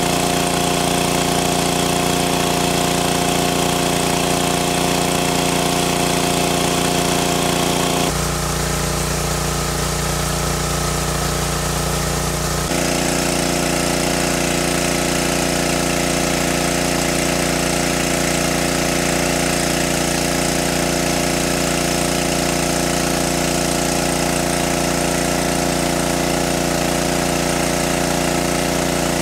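Small engine-driven water pump running steadily while it pumps water out through a hose. Its steady drone changes character abruptly about eight seconds in and again about four seconds later.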